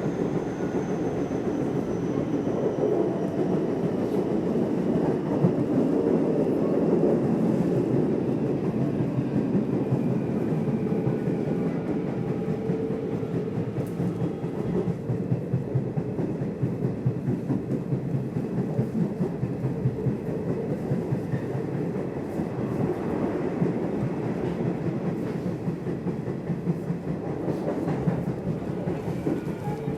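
Nishitetsu Tenjin Ōmuta Line electric train running, heard from inside the car: a steady rumble of wheels on the rails, with faint whining tones that slide in pitch.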